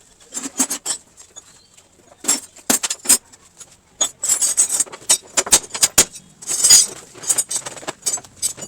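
Irregular sharp metallic clinks and knocks, some in quick clusters, typical of hand tools striking and handling metal during car body repair.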